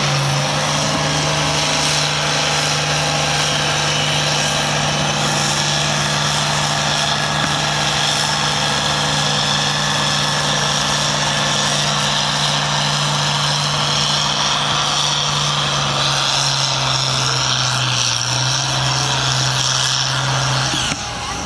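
International Harvester turbocharged diesel tractor engine running hard at a steady pitch under full load, pulling a weight-transfer sled. The note sags slightly near the end, then drops away as the pull ends.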